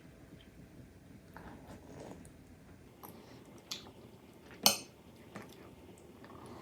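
Cutlery clinking against a dish a few times while eating, the loudest clink a little before five seconds in.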